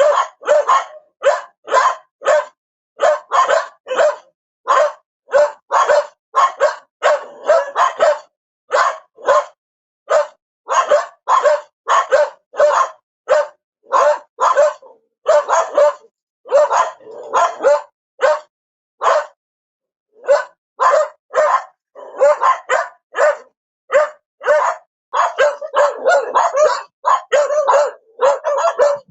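A dog barking over and over, about two barks a second, with a short pause about two-thirds of the way through and faster, overlapping barks near the end.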